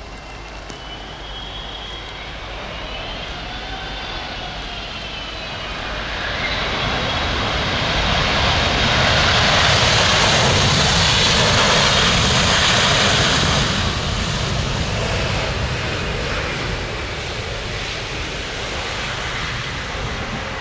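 Boeing 777-300ER's GE90 turbofan engines passing low with a whine that falls in pitch, then a loud roar that builds after touchdown on the wet runway, is loudest about eight to fourteen seconds in, and slowly eases as the jet rolls out.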